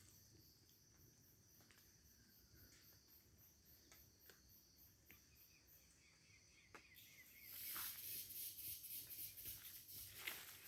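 Forest insects chirping faintly in a high-pitched, even pulse of about four beats a second over a steady high hum, growing louder about seven seconds in, with a few soft clicks.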